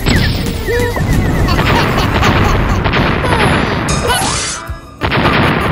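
Cartoon-style crash and smash sound effects over background music: a sudden crash right at the start, dense crashing noise with a few short squeaky pitch slides, a brief lull, and another sudden crash about five seconds in.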